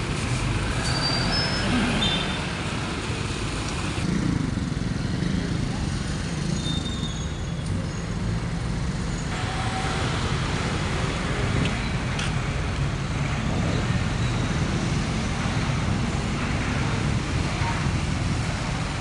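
Street ambience: steady road-traffic noise with people talking indistinctly in the background.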